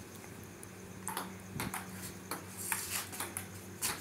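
Table tennis ball clicking off the bats and the table top during a rally: a handful of sharp ticks from about a second in, spaced roughly half a second apart, over a low steady hum.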